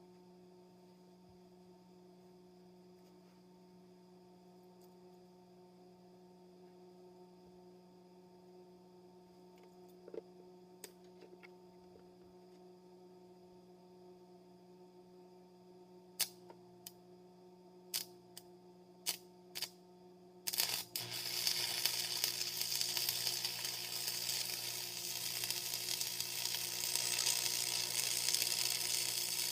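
AC stick welder (Lincoln AC-225 buzz box) humming at idle, then about six sharp cracks as the electrode is struck against the steel to start the arc. About 20 seconds in the arc catches and burns with a steady, loud crackling sizzle.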